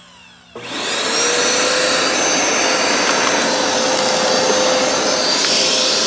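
Hoover SmartWash carpet cleaner switched on about half a second in: its suction motor spins up with a briefly rising whine, then runs loud and steady.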